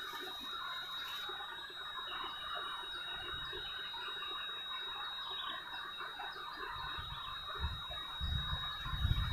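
Steady, dense chorus of wild animal calls from the swamp, with a thin, high, steady tone running through it. A few low bumps come near the end.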